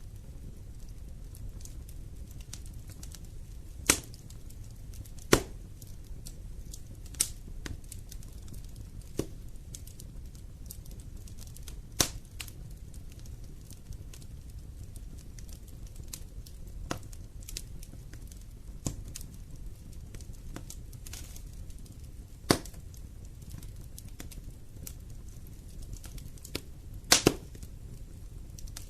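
Fire burning in a fireplace: a steady low rumble with sharp crackles and pops at irregular intervals, the loudest a quick double pop near the end.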